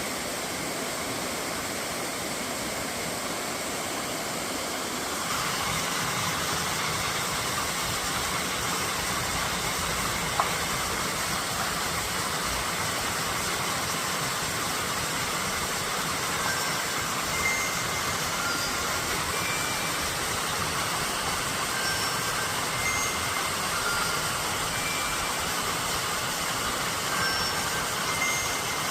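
Mountain valley stream flowing, a steady rushing water sound that grows a little louder about five seconds in. Short high peeps are scattered over it in the second half.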